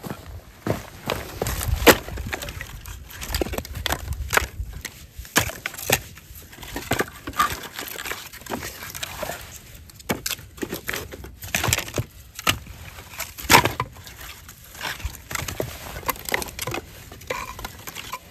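Footsteps crunching through snow: an irregular run of sharp crunches, about one or two a second, with a low rumble of wind on the microphone in the first few seconds.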